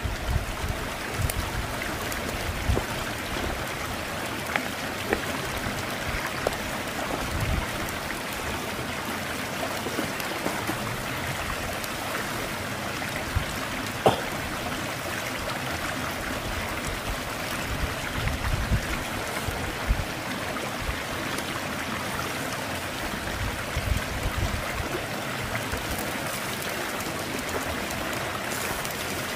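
Wood fire crackling with scattered sharp pops over a steady rushing hiss, as the fire heats a river stone with a steak on it.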